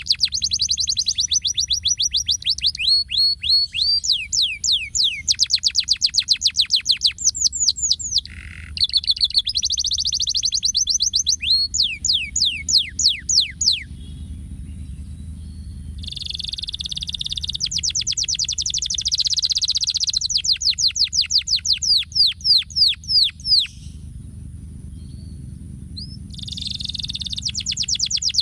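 Domestic canary singing: long rolling trills, each a rapid run of falling whistled notes, in phrases of several seconds with short pauses between them.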